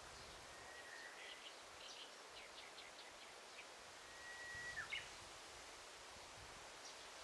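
Songbirds singing faintly over a soft forest hiss. A long steady whistled note, then a run of short chirps, then another long whistle that ends in a quick flourish about five seconds in, the loudest moment.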